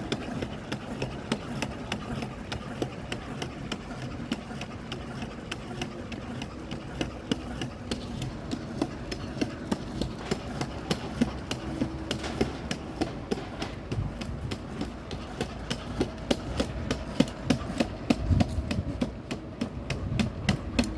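Quadruped robot dog walking: a quick, even patter of footfall taps, several a second, over a steady motor hum.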